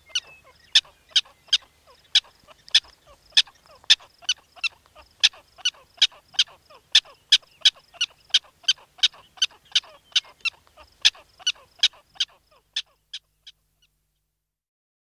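Prairie dog giving a long series of short, sharp, high-pitched barking chirps, about two to three a second, that fade out near the end.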